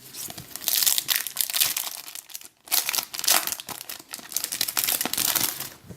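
Foil wrapper of a trading-card pack being torn open and crinkled, in two stretches of crackling with a short pause between them.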